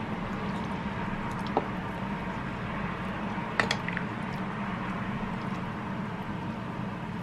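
Steady hiss of a pot of pork rib and spinach soup simmering on the stove, with a metal spoon knocking against the pan twice, about one and a half and three and a half seconds in.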